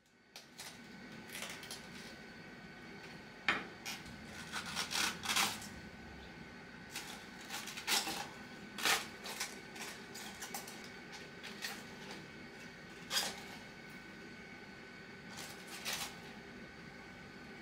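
Kitchen handling sounds: scattered light clicks and knocks of dishes and utensils being set down and moved, irregularly every second or two, over a steady background hum.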